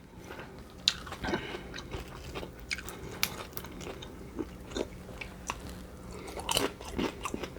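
A person eating crunchy food: bites and chewing with irregular sharp crunches.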